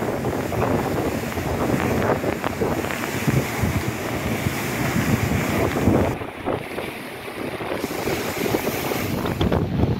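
Strong gusty wind buffeting the microphone over heavy rain and rushing, pouring water in a storm.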